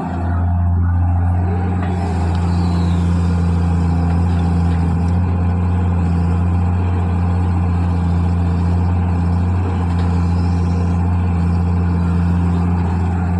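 Diesel engine of heavy earth-moving machinery running steadily, a loud even low drone with no marked revving.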